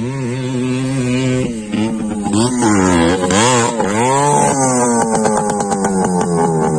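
Dirt bike engine revving hard through a corner: steady at first, then the revs swing sharply up and down as the throttle is worked, then fall away steadily through the last couple of seconds.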